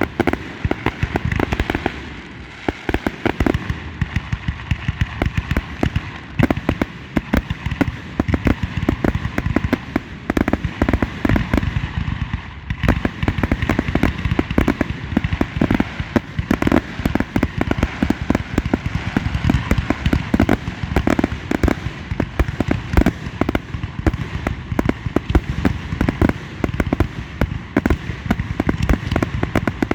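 Fireworks display: rapid, overlapping explosions, many bangs a second, with a brief lull about two seconds in.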